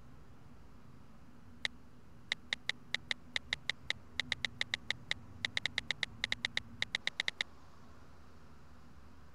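Phone keypad clicks as a text message is typed: a quick, uneven run of about thirty short, crisp clicks that starts about a second and a half in and stops about two seconds before the end, over faint room tone.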